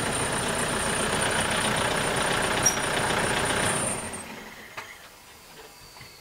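Toyota pickup truck's engine idling, then switched off about four seconds in as it is parked, with a thin high whine stopping at the same moment.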